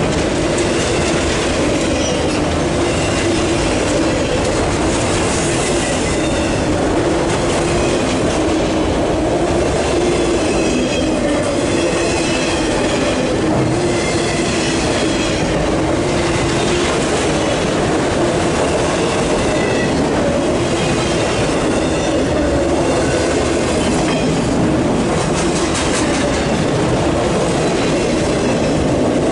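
CSX freight train of empty autorack cars rolling past at close range: a steady loud rumble and clatter of steel wheels on rail, with a wavering undertone and scattered high-pitched wheel squeal.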